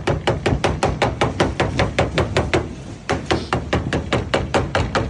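Rapid, even tapping of a lead dressing tool on heavy code 8 sheet lead, about six strikes a second with a brief pause about halfway through, as the lead is bossed up into the corner.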